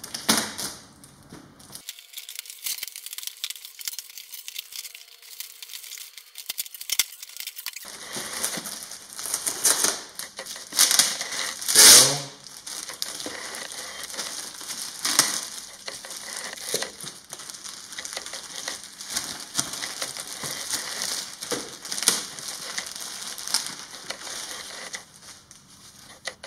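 Scissors cutting and tearing through a cardboard box wrapped in packing tape, then cardboard flaps and plastic bags rustling and crinkling as foam parts are lifted out. The loudest sound is a single rip near the middle.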